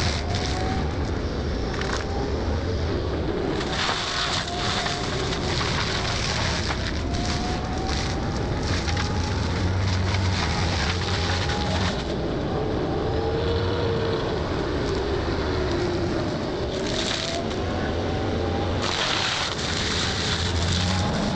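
Excavator engine running under load while its hydraulic forestry mulcher head grinds brush and small trees. A whine rises and falls in pitch over a steady engine hum, with frequent cracks and splintering of wood.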